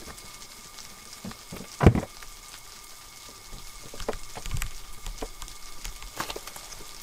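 Rustling and handling noise from a hand-held camera moving about inside a tent, with scattered small clicks and one loud thump about two seconds in.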